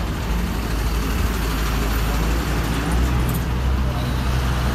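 Steady road and tyre noise from a moving vehicle on a highway, with the low rumble of heavy traffic. A low engine drone grows stronger about three seconds in as an Ashok Leyland diesel lorry runs close alongside.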